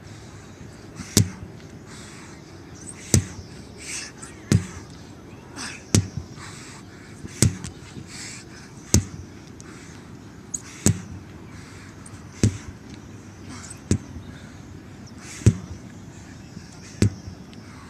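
Sledgehammer striking the top of a stack of large rubber tractor tires: a sharp whack about every one and a half seconds, eleven strikes in a steady rhythm.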